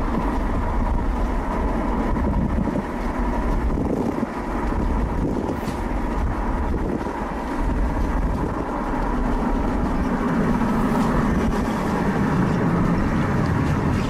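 Steady road and engine noise of a car driving.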